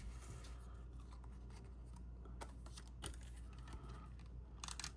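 Faint handling of cut cardstock pieces being positioned on a card front: light rustles with a few soft taps, more of them near the end, over a low steady hum.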